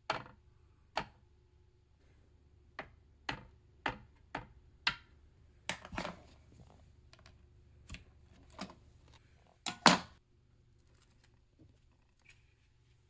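Scattered sharp clicks and light knocks of hard objects, a dozen or so at irregular spacing, the loudest about three quarters of the way through, over a faint steady hum.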